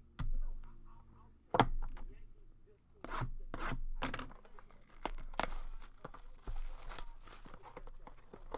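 Trading cards and their packaging being handled: several sharp clicks and taps, with rubbing and a longer rustling stretch in the middle.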